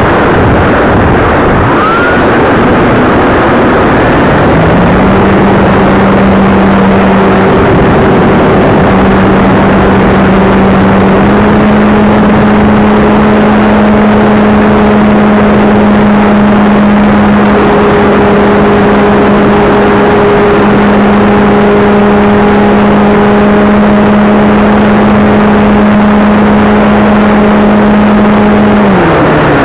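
Loud rushing noise from the propeller of a depron Piper J3 RC model plane, heard from right behind the propeller. A steady propeller hum rises in pitch about five seconds in and steps up slightly near the middle. Near the end the hum falls away sharply in pitch.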